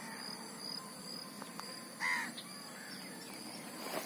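Outdoor lakeside ambience: insects chirring steadily at a high pitch, with one short bird call about two seconds in.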